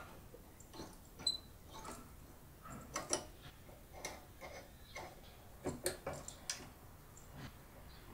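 Irregular small metallic clicks and taps as a pulley with a taper-lock bush and key is fitted by hand onto an electric motor's shaft.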